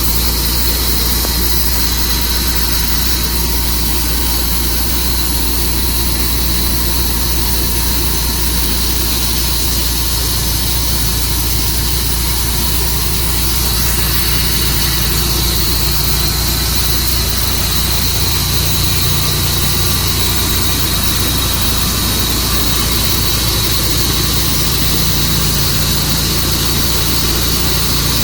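Tru-Cut sawmill running steadily while it saws through a juniper log: a constant engine drone with a steady higher whine over it.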